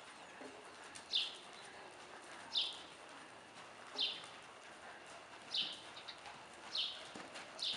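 Horse's hooves moving over soft arena footing, faint. Over them a short, high chirp repeats about every second and a half, the loudest sound.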